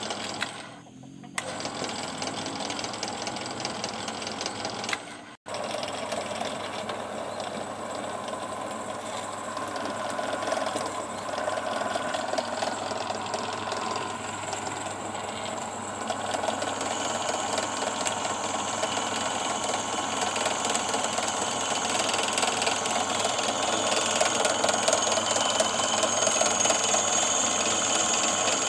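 RYU 13 mm bench drill press's electric motor running steadily, with two short breaks in the first six seconds.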